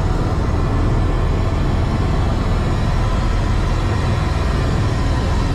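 Helicopter turbine engine and main rotor running steadily with a strong low rumble, heard from inside the cockpit.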